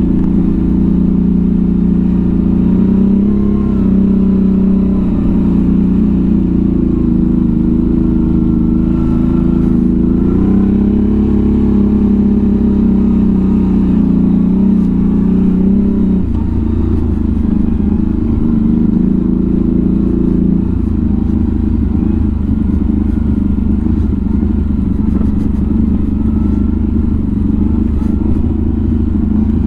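CFMoto CForce 1000 ATV's V-twin engine running steadily while riding down rough ground, its pitch wavering with the throttle. About halfway through the pitch drops lower and stays there.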